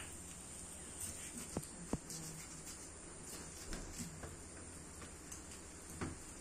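Knife working through raw chicken on a stainless steel table, with a few sharp taps of the blade against the steel, the loudest pair about two seconds in, over a steady low hum.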